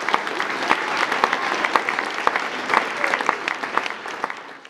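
Audience applause, many hands clapping steadily, fading out near the end.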